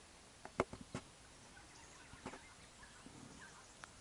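Faint outdoor background noise with a few short, sharp sounds: several within the first second and one more a little past two seconds in.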